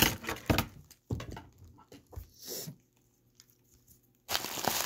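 Plastic bubble wrap being crinkled and pulled off by hand around a boxed baseball. The crinkling stops for a few seconds, then starts again near the end.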